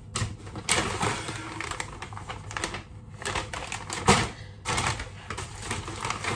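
Shopping bags and packaging rustling and crinkling as purchases are handled and unpacked, in irregular bursts, loudest about four seconds in.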